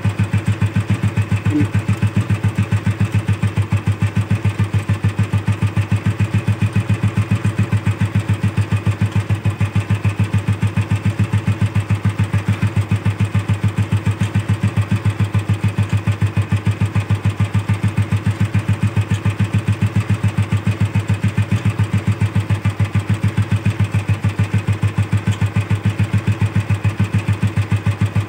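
Royal Enfield Bullet 350's single-cylinder four-stroke engine idling with a steady, even beat, while the oil flow to its rockers is checked.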